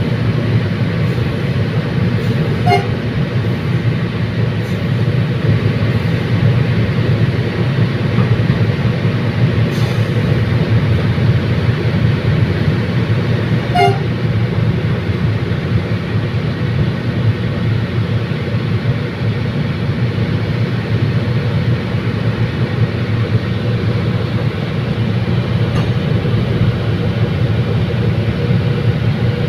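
Bicol Commuter diesel train running at steady speed: a constant low rumble of engine and wheels that does not change. Two short high tones sound over it, about three seconds in and again about fourteen seconds in.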